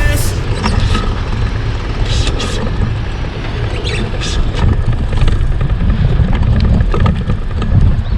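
Wind buffeting the microphone and road rumble while riding a fixed-gear bike downhill, with a few short clicks.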